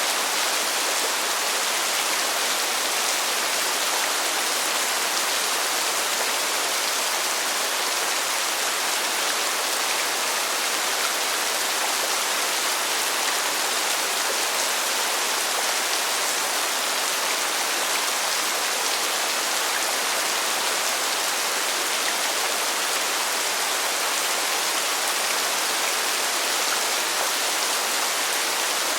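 Heavy rain pouring steadily, an even hiss of dense rainfall with no let-up.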